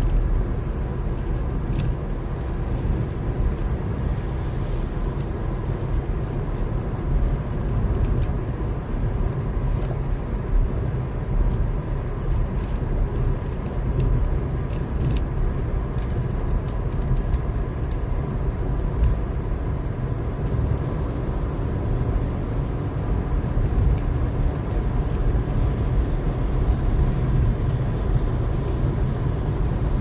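Steady low road rumble of a car cruising at freeway speed, heard from inside the cabin: tyre and engine noise with light clicks now and then.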